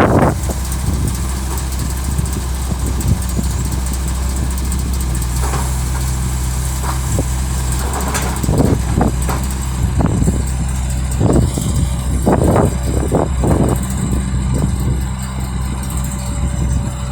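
Heavy diesel engines of an excavator and a dump truck running steadily at low revs, with a run of irregular knocks and thumps from about eight to fourteen seconds in.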